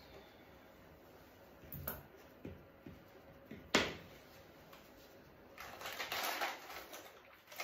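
A sharp clack of a metal comb set down on a stainless-steel grooming table a little under four seconds in, among softer taps of handling. About a second and a half later comes a burst of rustling from the puppy's fur and the groomer's handling.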